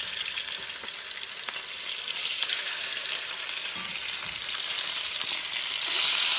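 Halibut fillets sizzling in hot oil in a stainless steel sauté pan as they are turned with a metal fish spatula. The sizzle is a steady high hiss that swells louder about six seconds in.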